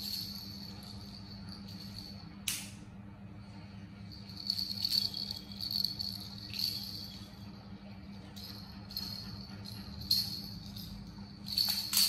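A plastic baby rattle toy shaken and knocked about in irregular bursts of rattling and jingling, over a steady high-pitched tone and a low hum.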